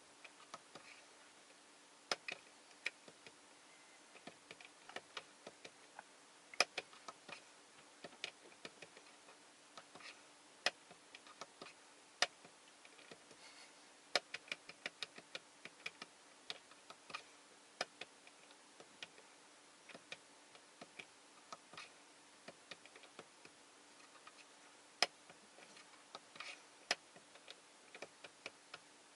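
Sharp plastic clicks of the Toyota Innova Crysta's steering-wheel menu switches being pressed, irregularly spaced and sometimes in quick runs, over a faint steady hum.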